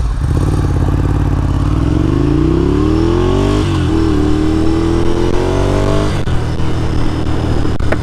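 Ducati Scrambler's L-twin engine, breathing through an aftermarket Delkevic muffler, accelerating hard from low revs. The pitch climbs, drops at an upshift about three and a half seconds in, climbs again, and drops at a second upshift about six seconds in.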